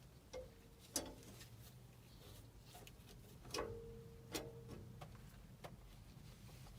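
Light metallic clinks and taps of metal parts being handled, about six spread a second or so apart, a couple of them ringing briefly.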